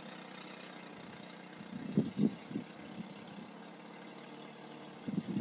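Faint engine of an off-road SUV running, with three short louder bursts about two seconds in.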